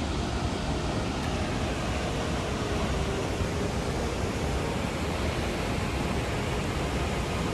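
Crescent Falls, a waterfall on the Bighorn River, rushing in a steady, unbroken wash of noise with a heavy low rumble.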